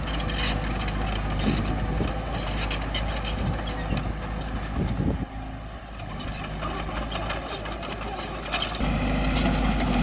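Heavy diesel earthmoving machinery running. The engine drone drops away about halfway through and comes back strongly near the end, with a few sharp metallic clanks in between.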